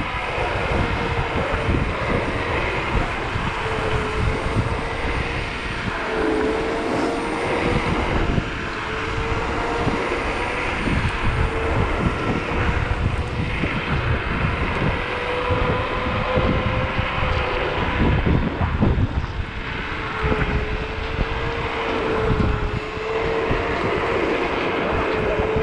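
Zero 10X electric scooter's hub motors whining at a steady pitch that wavers slightly with speed, under heavy wind buffeting on the body-mounted microphone while riding.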